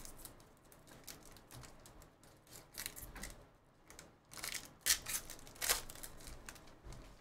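Foil trading-card pack wrapper being torn open and crinkled by hand: irregular crackles and rips, the sharpest about five seconds in.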